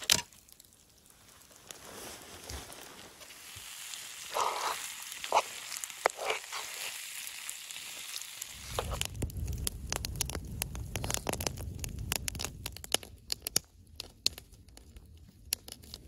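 Fire crackling and hissing, with sharp pops that become dense about halfway through, joined by a low rumble.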